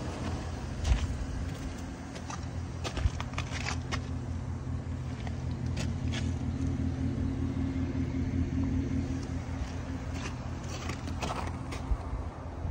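2011 Chevrolet Silverado 1500 pickup's engine idling steadily, with a few sharp clicks and knocks of handling close to the microphone.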